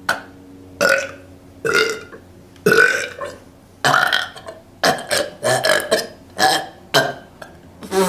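A woman burping over and over, a string of about ten short belches roughly a second apart.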